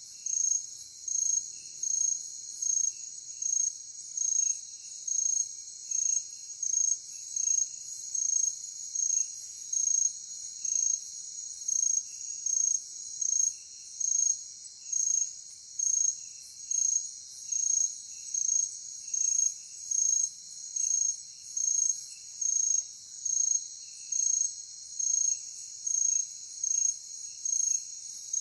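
Night insects, crickets, chirping in a chorus. One high chirp pulses in a steady rhythm, about three times every two seconds, over a continuous high hiss, with softer, irregular chirps from other insects beneath it.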